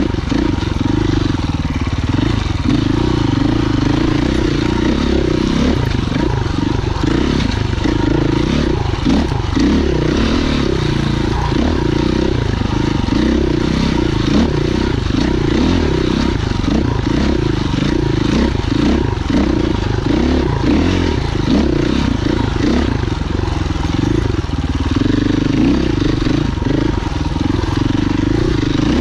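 Husqvarna FE 501 enduro motorcycle's single-cylinder four-stroke engine running as it is ridden, its pitch rising and falling constantly as the throttle opens and closes.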